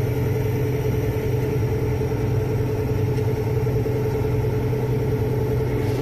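Combine harvester engine running steadily, a constant drone with a low hum.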